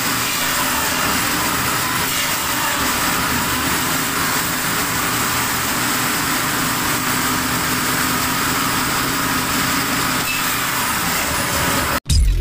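Motorised firewood saw running steadily. It cuts off suddenly near the end, followed by a brief low boom.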